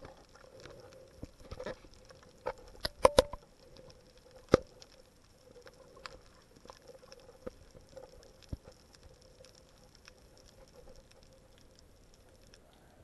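Underwater sound picked up by a submerged camera: scattered sharp clicks and crackles over a faint steady hum, with the loudest cluster of clicks about three seconds in.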